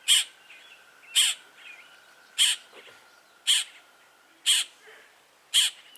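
A bird calling repeatedly near a blackbird nest: six short, sharp calls evenly spaced about a second apart, each with a quick downward slur.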